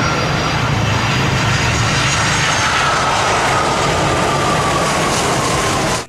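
Jet airliner's twin turbofan engines on landing: a steady jet rush with a thin whine that slowly falls in pitch. The sound cuts in and out abruptly.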